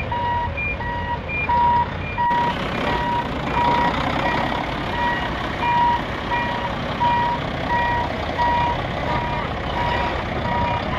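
Truck reversing alarm beeping steadily, a little more than once a second, over a continuous engine rumble as the remote-controlled model tow truck backs up to get into towing position.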